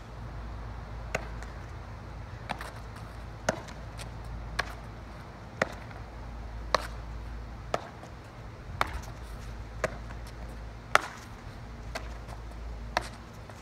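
A baseball smacking into leather baseball gloves in a rapid game of catch, about one sharp pop a second.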